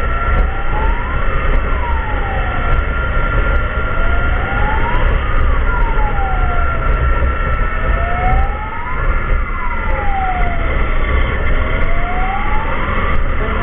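Emergency vehicle siren wailing, its pitch sliding up and down with a peak about every four seconds, alongside a steady high tone. Under it runs a heavy low rumble of road and wind noise.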